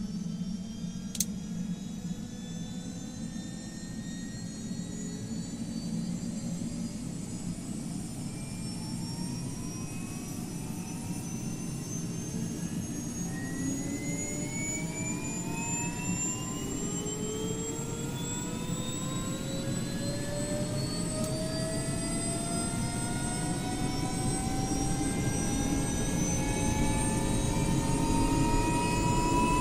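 Helicopter turbine engine spooling up during start-up: a whine rising slowly in pitch over a steady low rumble, growing gradually louder. A single sharp click sounds about a second in.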